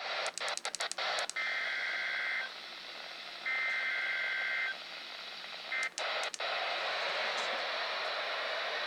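NOAA Weather Radio receiver playing an Emergency Alert System SAME header: a quick run of static clicks, then three bursts of raspy digital data tones over steady radio hiss. The first two bursts last about a second each and the third is cut short. The header marks the start of an alert.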